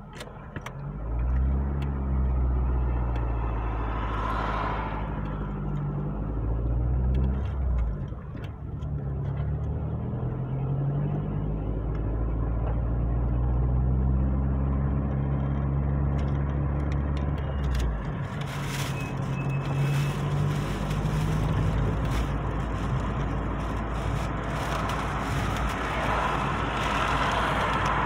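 Vehicle engine pulling away and accelerating, its pitch climbing, dropping at a gear change about eight seconds in, then climbing again; after about eighteen seconds it eases off and road and wind noise take over.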